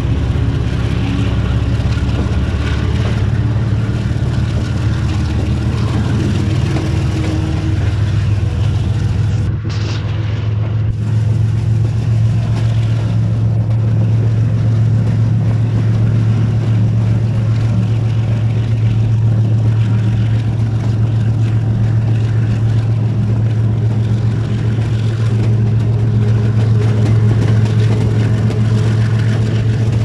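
GEU-class diesel-electric locomotive's engine running steadily under load as the train gets under way, a loud, even low drone heard from beside the cab.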